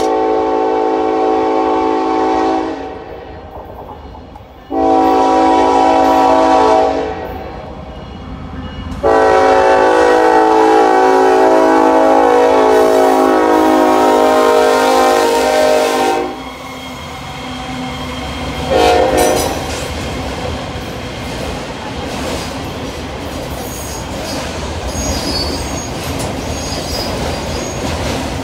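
Norfolk Southern diesel locomotive sounding its air horn for a grade crossing: three long blasts, the last the longest, followed by a short toot. The freight train then rolls past with a steady rumble and clickety-clack of wheels over the rail joints, and faint wheel squeal near the end.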